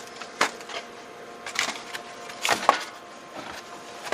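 Dry crackling rustles and light clicks of a spoon scooping dried sage leaves and tipping them into a kettle, in a few separate bursts about half a second, a second and a half and two and a half seconds in.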